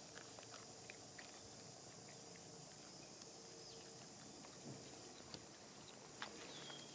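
Faint crackling and rustling of dry leaves under a macaque's hands and feet as it walks over leaf litter and settles, scattered light clicks a little louder near the end, over a steady high hiss.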